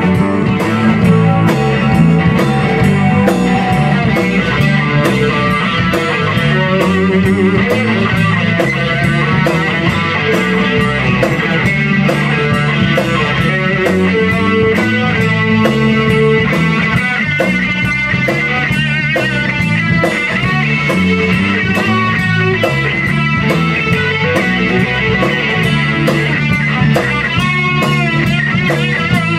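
Rock band playing an instrumental break without singing: electric guitar lead with bent, wavering notes over electric bass and a Tama drum kit.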